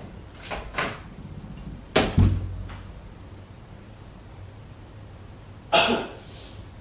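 Sharp knocks in a small room: a pair of hard knocks about two seconds in, the second with a low thud, and another sharp knock near the end with a short ringing tail. Two fainter taps come in the first second.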